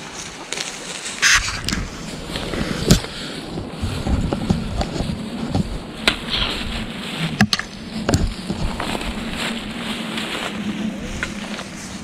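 Footsteps and brushing through leaves and branches on a steep wooded slope, as people climb down carefully: irregular crunches and snaps, the sharpest about three seconds in.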